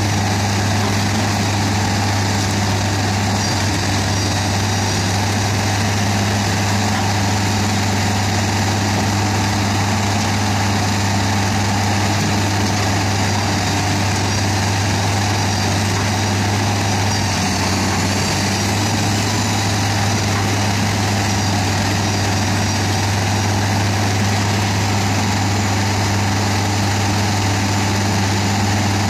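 Doppstadt DW 3060 slow-speed shredder running steadily on its diesel engine while shredding brush, together with the material handler's engine: one constant low drone with no breaks.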